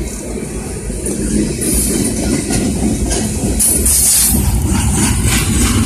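Steady low mechanical rumble, getting a little louder about a second in.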